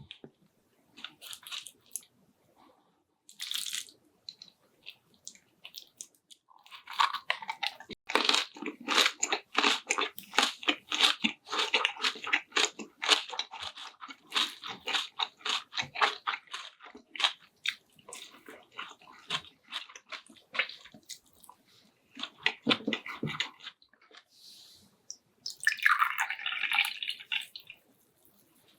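A person chewing food close to the microphone: a long run of rapid, wet, crunchy chewing clicks, with a short wetter burst near the end.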